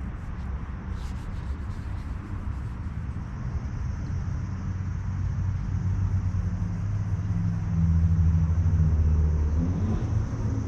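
A motor vehicle's engine running with a low rumble, getting louder about eight seconds in and rising briefly in pitch near the end.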